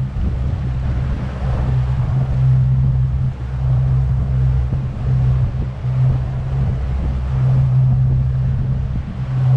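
Twin outboard motors driving a boat under way, a steady low drone, with the rush of the wake and wind buffeting the microphone.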